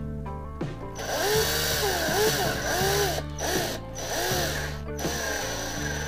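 Small power drill drilling out the rivet on the base of a diecast toy truck, in several short runs from about a second in, its motor pitch dipping and rising as the bit bites into the metal. Background music plays throughout.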